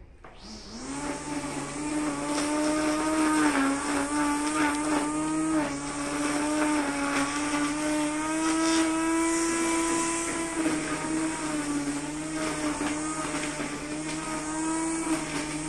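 Brush cutter motor starting up and climbing quickly to a steady run, its speed dipping slightly now and then.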